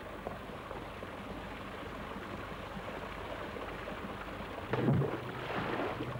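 A bundle thrown into canal water lands with a sudden splash about five seconds in, followed by about a second of water churning, over a steady background hiss.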